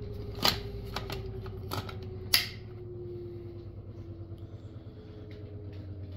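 A few sharp clicks and knocks from a JTS AR-12 shotgun and its plastic box magazine being handled, the loudest about two and a half seconds in. Under them runs the steady hum of a laundry machine, with a faint tone slowly dropping in pitch.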